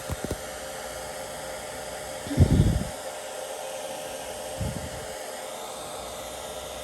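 Hair dryer running steadily, with low bumps of handling: a couple just at the start, the loudest about two and a half seconds in, and a softer one near five seconds.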